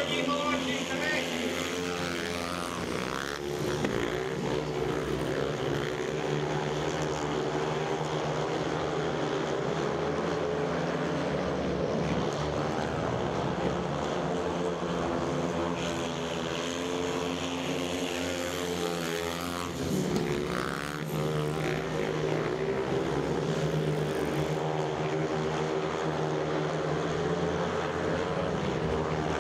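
Several speedway motorcycles, 500 cc single-cylinder methanol engines, racing flat out around the dirt oval. The engine pitch rises and falls as the riders open and shut the throttle through the bends and down the straights.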